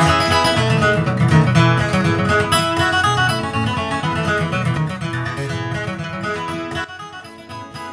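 Outro background music led by guitar, gradually fading out.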